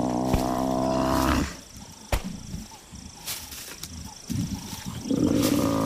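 Buffalo bull bellowing in distress, a long low steady moan that ends a little over a second in and starts again near the end, as lions hold him down. In between there is quieter scuffling with a sharp knock.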